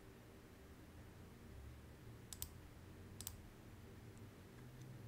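Computer mouse clicking: two quick double clicks about a second apart, over faint low hum.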